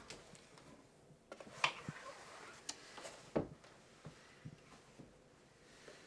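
Quiet room tone with a few soft knocks and rustles of someone moving about and handling clothes, the clearest about one and a half and three and a half seconds in.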